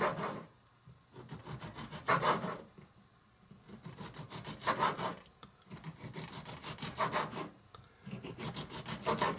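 A small knife sawing through slices of a ripe tomato on a miniature wooden cutting board. Each slice is a short burst of quick back-and-forth strokes, about every two seconds.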